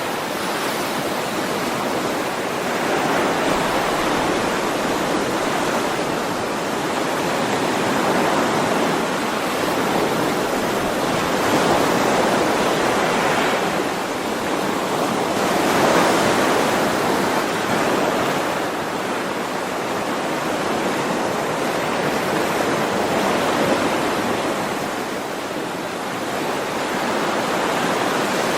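Ocean waves washing onto a shore: a continuous surf that swells and eases every few seconds.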